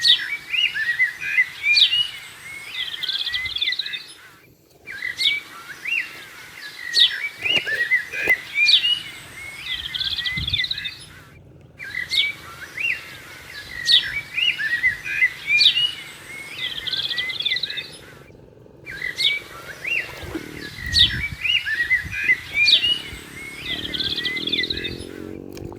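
Birds chirping and tweeting in a short recorded loop that restarts about every seven seconds, each time after a brief cut-out.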